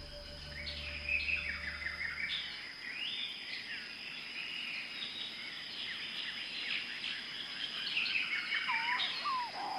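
Forest birds chirping and calling in many short, quick phrases over a steady thin high tone. About nine seconds in, lower whistled notes that slide up and down join in.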